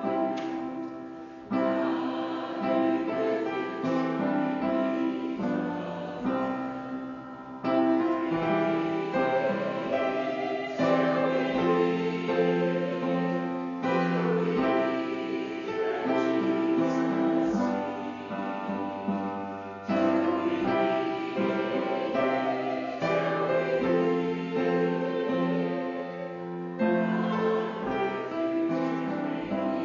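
Music: a song sung with instrumental accompaniment, in phrases a few seconds long.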